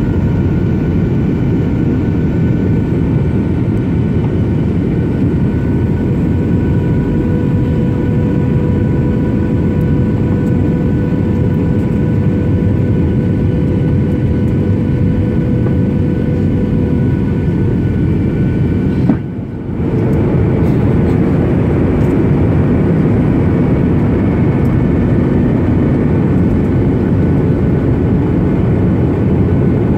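Boeing 737-800 cabin noise from a window seat over the wing during the landing approach: a steady rush of airflow and the CFM56-7B engines, with a thin whine in several steady tones. About two-thirds of the way through the sound briefly drops out for under a second, and the whining tones change after it.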